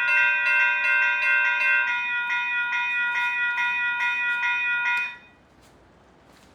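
Two electronic locomotive bells, a Western-Cullen-Hayes Type 1.5 E-Bell and an NEG E-Bell, ringing together in a steady rhythm of about two and a half strokes a second. One bell stops about two seconds in, and the other cuts off about five seconds in.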